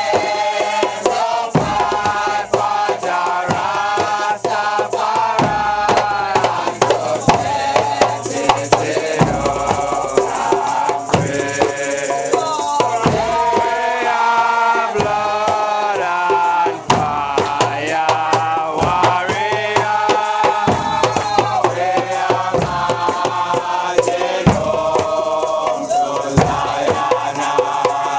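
A congregation chanting and singing together over Nyabinghi-style hand drums played in a steady rhythm, with hand clapping.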